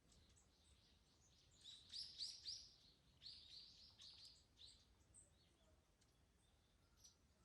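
Faint songbird song: a quick run of repeated high notes about a second and a half in, and a second run just after three seconds, with scattered faint chirps from other birds around them.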